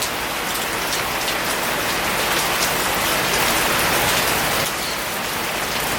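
Steady heavy rain falling and pattering on surfaces, with close drops ticking near the microphone, from hurricane rain bands.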